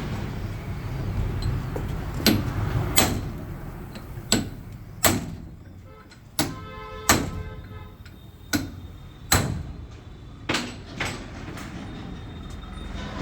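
About ten sharp knocks, mostly in pairs roughly 0.7 s apart, over a low steady rumble.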